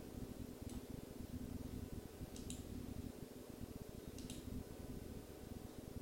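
Computer mouse clicking a few times, about three clicks spaced a second or two apart, some heard as a quick press-and-release pair, over a low steady hum.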